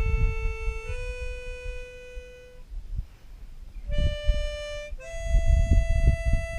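Harmonica playing a slow melody of long held single notes that step upward, with a short pause midway and the last note held for about three seconds. Low rumbling noise comes and goes underneath.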